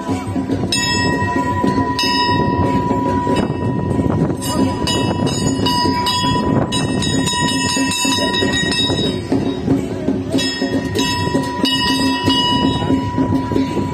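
Metal bells and cymbals ringing and clashing in a continuous, loud clangour.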